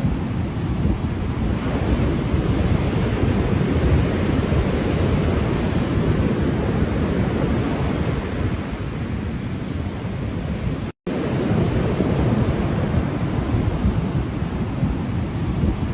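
Ocean surf washing steadily, a continuous low-heavy rush of water with no breaks between waves. The sound cuts out completely for an instant about two-thirds of the way through.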